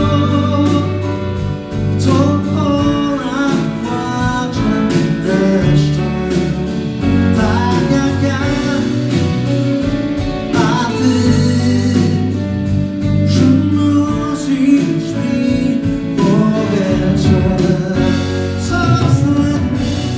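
A live pop band playing a ballad, with steady bass, drums, guitar and keyboards under a sung melody line.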